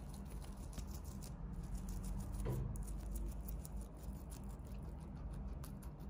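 Guinea pig chewing fresh spinach leaves, a rapid run of small crisp crunching clicks.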